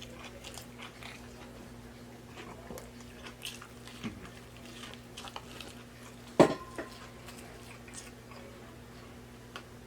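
Close-miked mouth sounds of someone eating a fried chicken nugget: scattered small wet clicks and smacks of chewing, over a steady low hum. There is one louder knock about six and a half seconds in.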